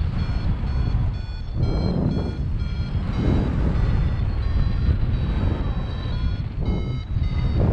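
Wind rushing over the microphone in flight under a paraglider, with a flight variometer's short high beeps repeating several times a second, the beeping that signals the glider is climbing in lift.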